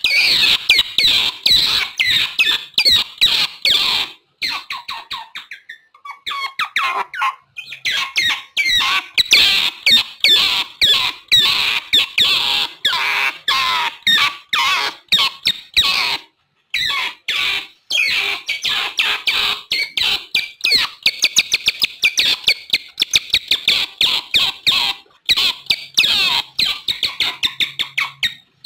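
Otters chirping and squeaking: rapid runs of short, high-pitched calls, broken by a few brief pauses.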